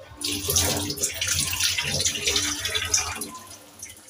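Water running or pouring in a stream for about three seconds, starting suddenly and tailing off.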